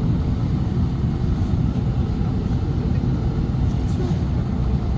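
Steady low rumbling noise, even and unbroken.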